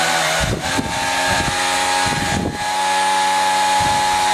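TY923 quadcopter drone's four electric motors and propellers running fast while the drone is held in the hand: a steady, level buzzing whine over a rush of air. Short gusts of propeller wash hit the microphone a few times.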